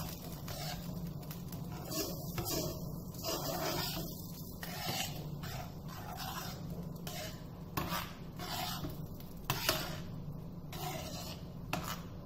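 A spoon scraping and stirring through thick moong dal payasam in a frying pan, in repeated irregular strokes about once a second, over a low steady hum.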